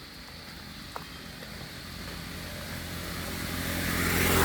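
A motor vehicle approaching on the road. Its engine hum and tyre noise grow steadily louder, loudest at the very end as it comes close.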